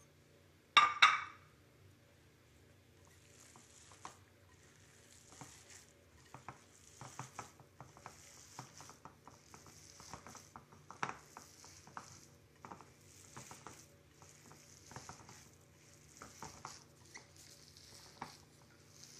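A sharp double clink of dishes about a second in, then a gloved hand mixing a wet, sticky stuffing of chopped raw chicken and thread noodles in a glass bowl: irregular soft squishing and rustling with small clicks against the glass.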